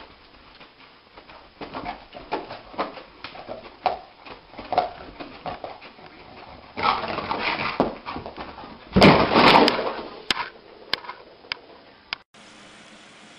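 A dog whimpering in a series of short cries, with two louder noisy bursts partway through.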